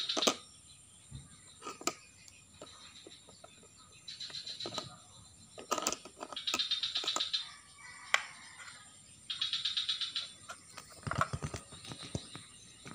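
Light clicks and knocks of plastic toy cookware being handled and tapped together. Three short, high, rapidly pulsing trills of about a second each stand out above them.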